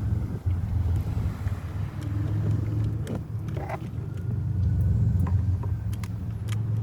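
Steady low rumble of a motor vehicle's engine, with a few faint clicks.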